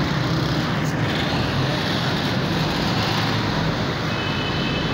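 Motorcycle engine running steadily while riding, heard from the rider's seat, with street traffic around. A brief, faint high steady tone sounds near the end.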